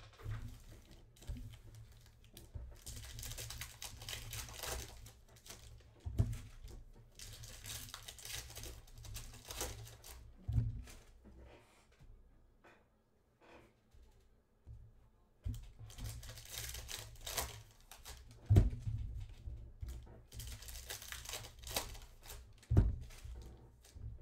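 Foil trading-card packs being torn open and crinkled by hand in repeated bursts of a second or two, with several sharp thumps on the table between them, two of them the loudest sounds.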